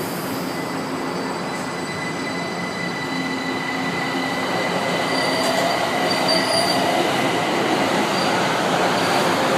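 São Paulo Metro train running in the station: a steady rumble with a thin, high wheel squeal. About halfway through the sound grows louder and a whine rises slowly in pitch.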